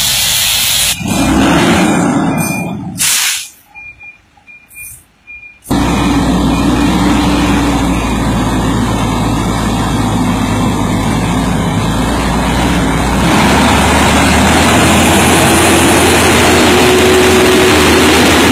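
Tanker semi-truck's diesel engine running with a steady, noisy rumble, opened by a short hiss of air brakes. A few seconds in, the sound nearly drops out for about two seconds before the engine noise returns.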